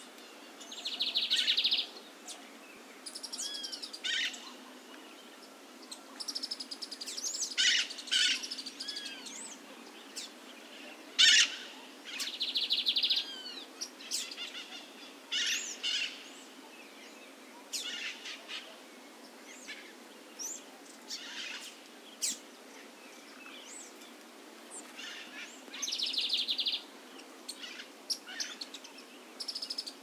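Lined seedeater singing in repeated phrases of sharp notes, curved whistled sweeps and buzzy trills, with short pauses between. The buzzy trill comes three times: about a second in, near the middle, and near the end.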